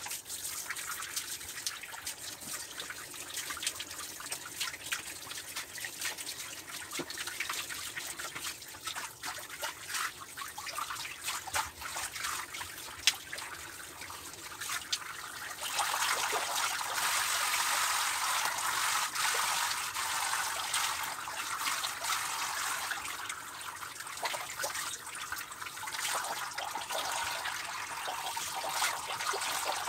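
A handheld shower head sprays water over a dog's wet coat and onto the shower floor, rinsing the dog. About halfway through, the spray turns louder and fuller.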